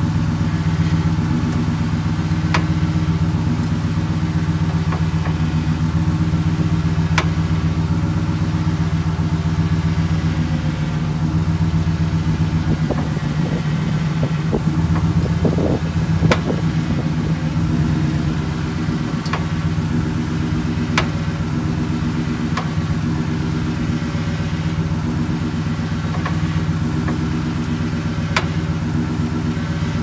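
Second-generation Toyota Tundra idling steadily while the steering wheel is turned, with a sharp pop every few seconds from the steering rack and pinion. The pops come from worn rack-and-pinion mounting bushings, which the owner and his mechanic found to be the cause of the truck's alignment that keeps going off.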